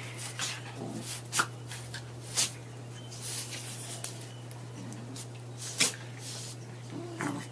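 Puppies play-fighting: short little growls and whines with several sharp knocks from their scuffling, over a steady low hum.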